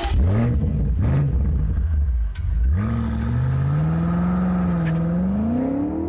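BMW M5 (F90) 4.4-litre twin-turbo V8 firing up with a sharp rise in revs, blipped twice, then pulling away with the engine note climbing steadily.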